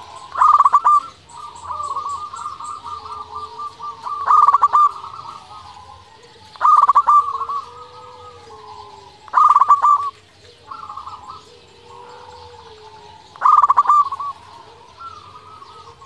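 Zebra dove (perkutut) singing: five loud stuttering coos a few seconds apart, each trailing into softer rolling coos.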